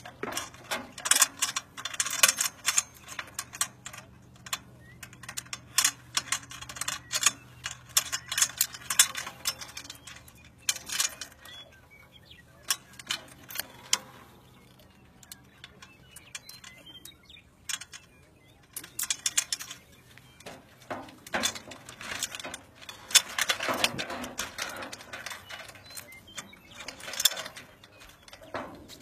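Metal line hardware clicking and clinking as gloved hands work the clips and clamps on a power line's conductors, in irregular clusters of sharp clicks with a quieter stretch near the middle.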